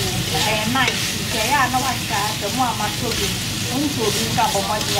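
Shrimp sizzling steadily in hot oil in a nonstick frying pan, turned over now and then with a slotted spatula.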